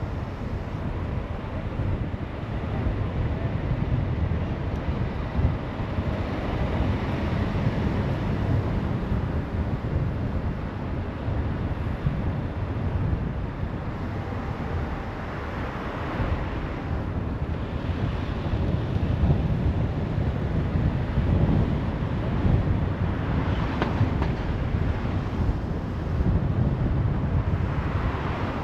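Car driving along a road: steady low road and engine rumble with wind buffeting the microphone, swelling louder a few times.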